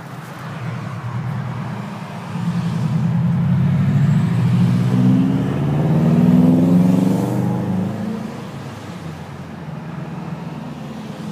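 A motor vehicle engine running, growing louder and rising in pitch toward the middle, then fading.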